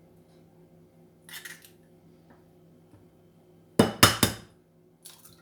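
Kitchenware being handled: a light clatter, then a quick run of three or four sharp knocks and clinks about four seconds in, and one more small clink near the end.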